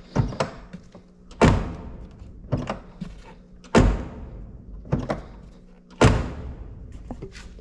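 Six solid thunks about a second apart on the body of a 2003 Smart, struck or shut repeatedly to test for a rattle; each thunk dies away cleanly with no rattle after it, a sign that the taped fix has worked.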